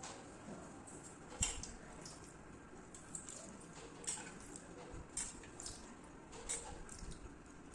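Light scattered clinks, knocks and small watery splashes of hands handling cut jackfruit pieces and a steel bowl of soaking water, the sharpest knock about one and a half seconds in.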